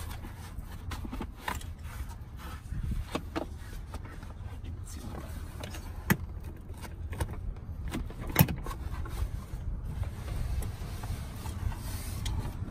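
Plastic Graco Click Connect infant car seat base being shifted and pressed down onto a car's back seat: scattered knocks and clicks of hard plastic, the sharpest about six and eight seconds in, over a low steady rumble.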